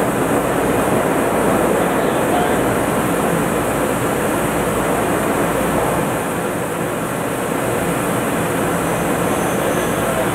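Steady machinery noise on a drilling rig's drill floor: a loud, even din without clear tones that eases slightly about six seconds in.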